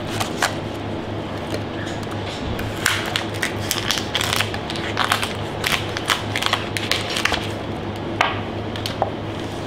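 Shell of a cooked lobster cracking and crunching as it is cut with a knife and broken apart by hand: a quick run of sharp cracks through the middle, then a few single snaps near the end, over a steady low hum.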